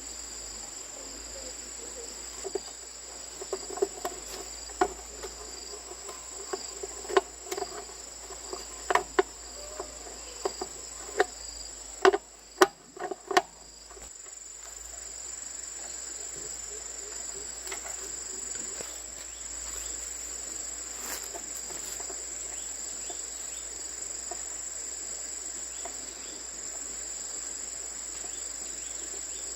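Crickets chirring steadily in a high, continuous chorus. Over the first half, about a dozen sharp, irregular knocks of hard objects striking each other sound over the chorus, the loudest just before the middle.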